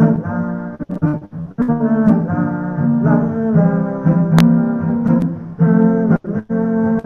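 A man singing a song of his own with lyrics not in English, holding long notes phrase after phrase, heard over a video-call webcam microphone.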